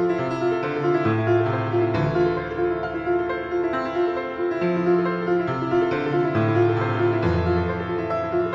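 Instrumental piano music. Low bass notes change every second or two beneath a line of quickly repeated higher notes.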